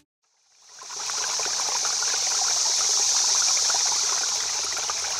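Steady rushing, trickling water, like a stream, fading in over about a second.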